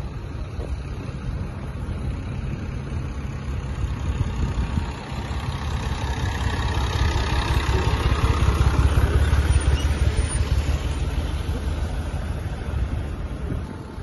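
Engine running steadily, growing louder in the middle as a Massey Ferguson tractor pulling a trailer passes close by, then easing off again.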